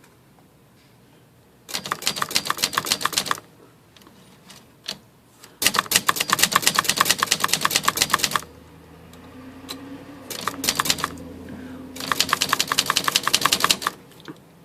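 Brother Charger 11 manual typewriter typed fast in several bursts of rapid key strikes, with short pauses between them. This is a test run of the ribbon drive after its broken spool peg was replaced with a paper clip.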